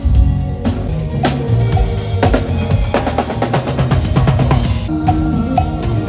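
A band playing with the drum kit to the fore: kick drum and snare hits drive a busy beat over bass and other instruments. The music changes abruptly about five seconds in.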